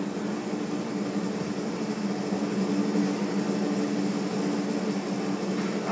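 Instrumental stage-musical score: a sustained, droning low chord held steadily with a hiss-like wash over it.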